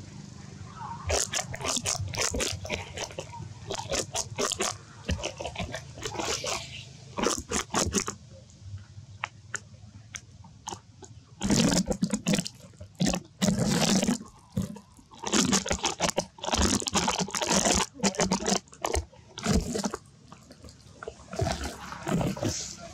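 A long-tailed macaque biting and chewing a crunchy green fruit: uneven runs of crunches, louder and closer together in the second half.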